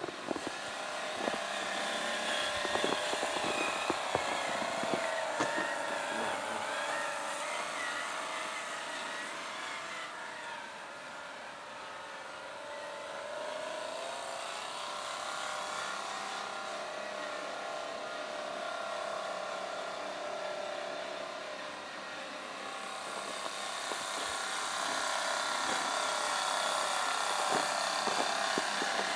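Scale RC logging truck's electric motor and gear drive whining as it drives, the pitch and loudness rising and falling with its speed.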